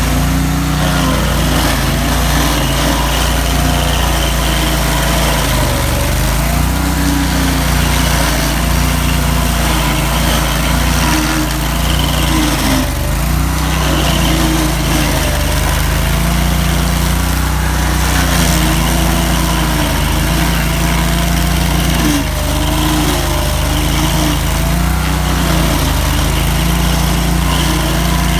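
Stump grinder's engine running continuously at high speed while grinding out tree roots, its pitch wavering up and down.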